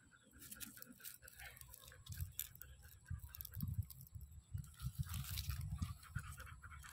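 A dog biting and gnawing on a dry stick: scattered crunching and cracking clicks, mixed with irregular low thumps.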